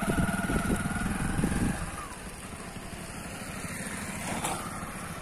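Motorcycle engine running as the bike passes close by, loud with a fast low pulse for about two seconds, then quieter as it rides away.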